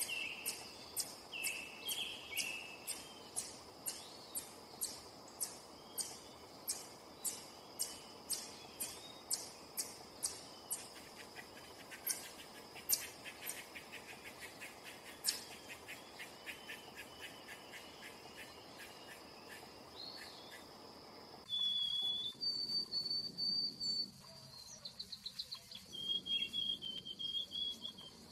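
Eastern chipmunk giving its repeated sharp chip call, about two to three chips a second, then a faster, softer run of ticks about halfway through, over a steady high insect drone. In the last several seconds short whistled bird notes take over.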